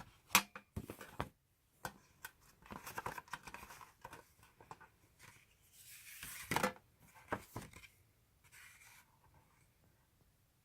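Packaging being opened by hand: irregular scraping and rustling with several sharp clicks, dying away about nine seconds in.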